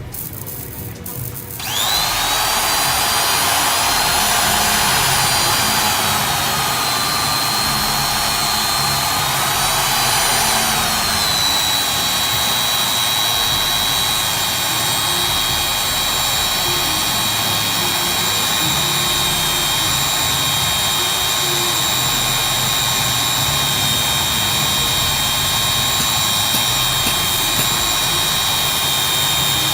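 Magnetic drill's motor starting about two seconds in, then running steadily with a high whine, driving a 20 mm bit into 20 mm steel plate. The pitch sags a little about ten seconds in and holds slightly lower.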